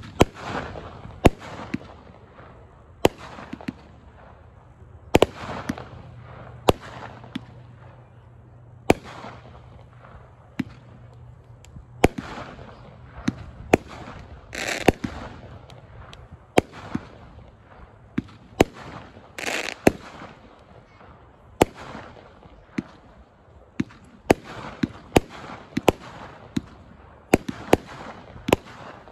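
'Kiss Me' consumer firework cake firing shot after shot. Sharp bangs come unevenly, about one a second, each trailed by a hiss.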